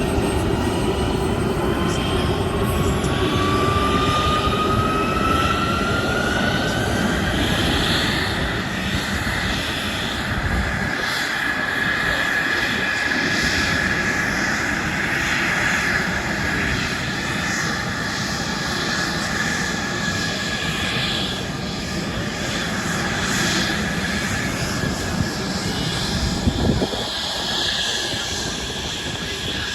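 Airplane engine running, a continuous dense noise with a thin whine that rises in pitch over the first several seconds and then holds steady.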